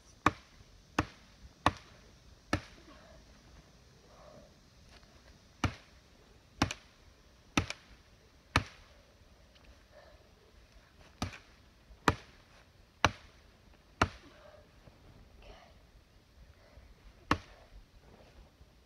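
Sharp, single blows of a chopping tool against wood, about one a second in runs of four, with a pause of a few seconds between runs.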